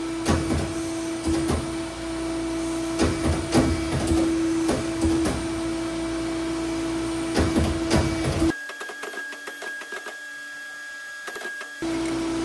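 Ironworker's notcher running with a steady motor hum, with a series of short sharp clunks as the notching blade bites off small pieces of aluminum sheet. A little over two-thirds of the way through, the hum drops out for about three seconds, leaving a quieter background with a faint high tone, then comes back.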